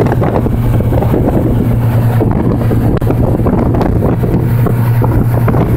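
Car ferry's engine running with a steady low hum while under way, with heavy wind buffeting the microphone.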